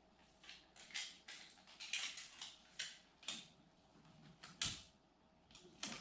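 Irregular clicks, scrapes and creaks of something being handled, a few a second, with one sharper knock a little past the middle.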